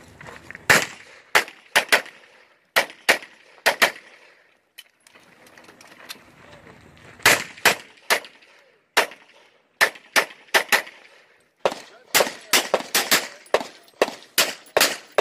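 Handgun shots fired in quick pairs and short strings, several dozen in all. There is a pause of about three seconds in the first half, and the fastest run of shots comes near the end.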